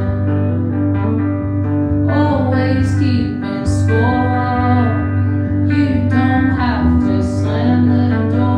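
Live rock song: a woman singing into a microphone over her own strummed guitar, with a steady low accompaniment underneath.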